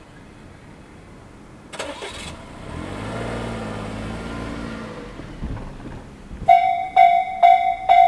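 A small car's engine passes close by and fades as it drives over the crossing. Near the end, the Japanese level crossing's electronic warning bell (Tobu 'sound C') starts, ringing about twice a second, as the crossing begins its warning for an approaching train.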